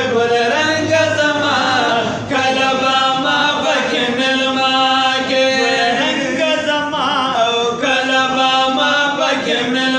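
A group of men singing a naat, an Islamic devotional hymn, without instruments. A lead voice's melody moves over a steady held note.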